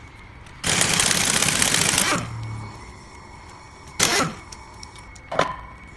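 Pneumatic impact wrench hammering in one rapid burst of about a second and a half, undoing a fastener in the planetary carrier of a final drive gearbox. Two sharp metal clanks follow, about two and three and a half seconds later.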